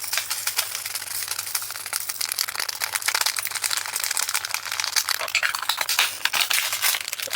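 Dense, continuous ticking and pattering of tiny resin diamond-painting drills pouring and shifting into a plastic storage container, mixed with the crinkling of the small plastic drill bag.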